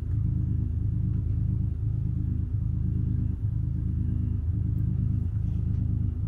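A steady, low rumble of a running engine, even in pitch throughout.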